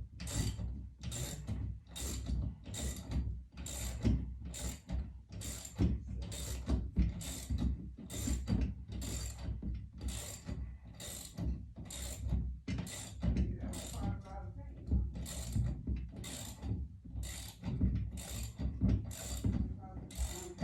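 A hand tool worked in steady, even back-and-forth strokes, about one and a half a second, each stroke a rasping burst.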